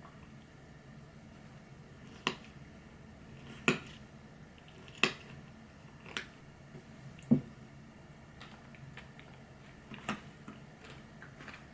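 About half a dozen light, sharp clicks and knocks at irregular intervals, like small objects being handled and set down, over a faint steady low hum; the loudest knock comes about seven seconds in.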